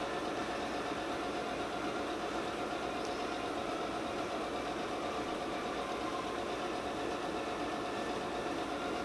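Steady, unchanging background hum with a few faint steady tones in it, like a machine running.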